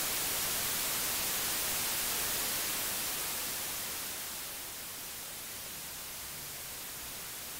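Hiss of static from an untuned television: an even white-noise rush, strongest in the highs, that eases a little quieter about halfway through.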